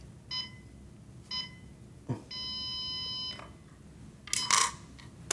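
Electronic shogi game clock counting down the last seconds: two short beeps a second apart, then a longer beep of about a second. A sharp knock comes just before the long beep, and a louder clack a little past four seconds in, as wooden shogi pieces are placed on the board.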